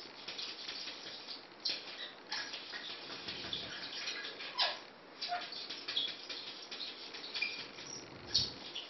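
Maine Coon kitten's paws patting and scraping against a mirror: a run of small irregular taps and squeaks, with two duller bumps, the louder one near the end.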